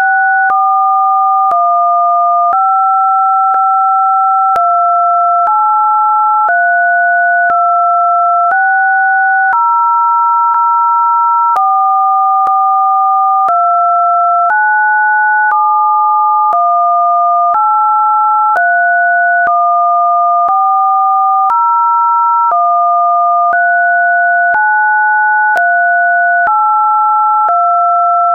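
Two computer-generated pure sine tones sounding together, a lower and a higher one, held at a steady loud level. Each steps to a new pitch about once a second, sometimes holding for two or three seconds, with a faint click at each change.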